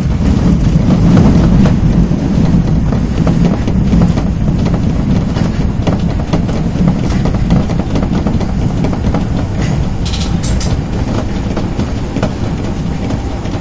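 Osaka subway 22 series train running at speed through a tunnel: a steady low rumble of wheels on rail with a fast clatter of clicks over the track.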